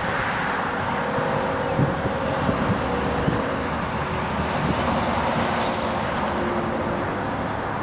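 Steady road noise of a vehicle driving along: an even rumble and hiss of tyres and engine with a faint steady hum.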